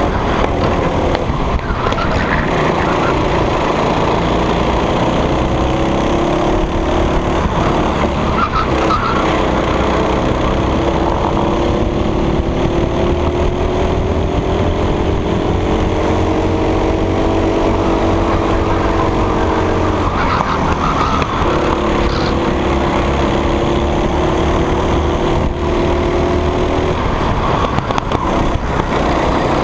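Racing go-kart engine heard from the driver's seat at full race pace, its pitch rising and falling in long sweeps with the throttle as the kart laps the track, over a steady low rumble.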